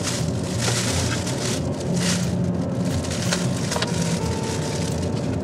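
Metallic foil gift wrapping crinkling and rustling in irregular bursts as it is torn open by hand, with a few sharp crackles, over a steady low car-cabin rumble.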